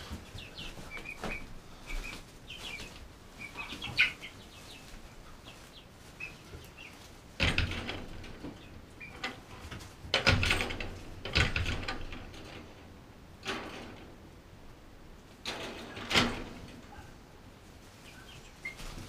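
Chickens chirping in short, quick peeps, mostly in the first few seconds. Several loud knocks and rustles cut in, from handling and bumping against the wooden coop.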